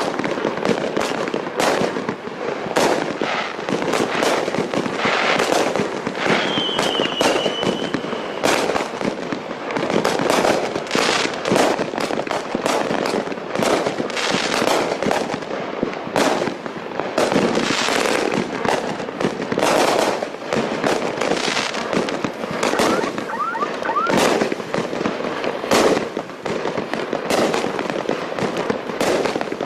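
Red Lantern 'Team Coco' 33-shot 500-gram fireworks cake firing: a rapid, continuous run of shot launches and aerial bursts, overlapping one another.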